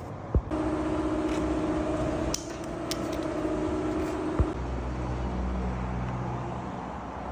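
Hyundai Elantra running with its new AC compressor: a sharp click, then a steady whine for about four seconds. A second click follows, and the whine gives way to a lower steady hum.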